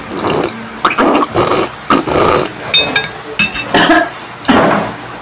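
A person eating noisily with his face down at the bowl: a quick series of loud, exaggerated slurping and gobbling noises with animal-like grunts, stopping near the end.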